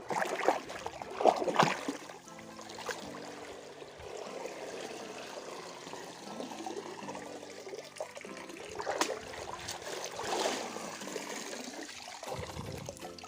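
Background music over river water splashing and trickling, with louder splashes in the first two seconds and again about nine and ten seconds in.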